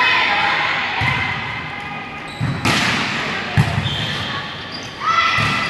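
A volleyball being struck during a rally in a large gym: several sharp smacks that ring in the hall, the loudest about three and a half seconds in, with players' voices.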